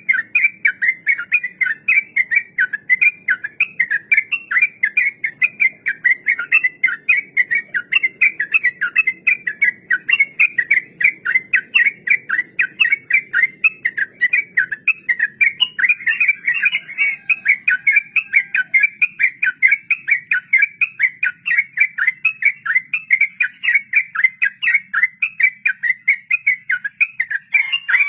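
Yellow-vented bulbul (trucukan) singing a long 'ropel' song: an unbroken, rapid stream of short chirping notes, several a second, without pause.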